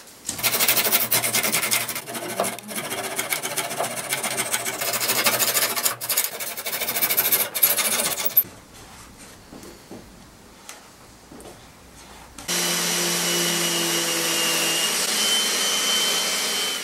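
Double-edged pull saw cutting glued-in wooden dowel plugs flush with a veneered top, in quick scraping strokes for about eight seconds. After a quieter pause, a steady electric machine hum with a high whine starts about twelve seconds in.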